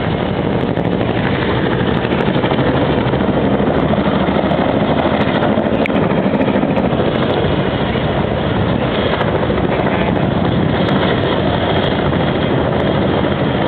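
CH-46 Sea Knight tandem-rotor helicopter taking off, its rotors and twin turboshaft engines running loud and steady.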